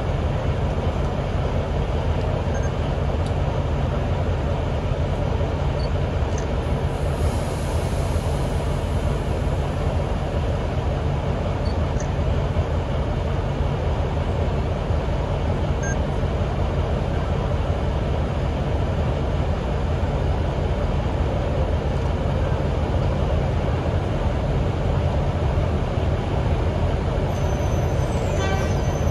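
The diesel engine of an NSWGR 44 class Alco-design diesel-electric locomotive runs steadily at low power with a deep, even drone that does not rev up or down.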